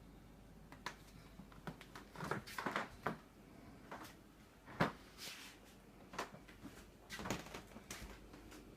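Irregular metal clicks, knocks and short scrapes of a wood-burning stove-fireplace's doors and fittings being opened, closed and handled. There is a sharp knock about five seconds in.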